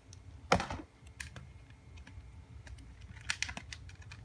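Hard plastic clicks and taps from a plastic container and its lid being handled: a sharp knock about half a second in, then a quick run of small clicks near the end.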